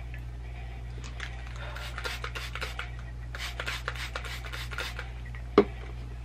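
Thick coily hair being handled and sectioned by hand, giving runs of short, scratchy rubbing and rasping sounds, then a single sharp knock near the end. A steady low hum sits underneath.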